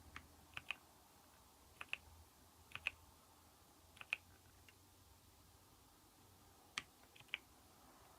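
Keys being pressed slowly on a Keychron V6 Max mechanical keyboard with Gateron Brown tactile switches: faint, scattered keystroke clicks, mostly in quick pairs, with pauses of a second or more between them.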